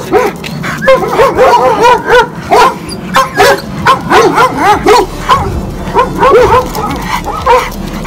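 Golden retrievers barking loudly in a fast series of short barks, more than one dog at once with the barks overlapping, thickening about a second in.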